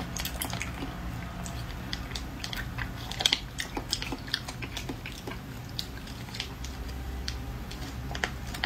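Close-miked mouth sounds of eating a jelly sucked from a small plastic stick sachet: irregular wet clicks and smacks, the sharpest about three seconds in.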